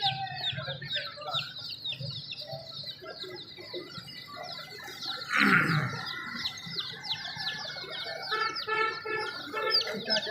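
A crowd of young chicks peeping without pause, many short high cheeps that slide downward, several a second. About halfway through there is one louder, harsh burst.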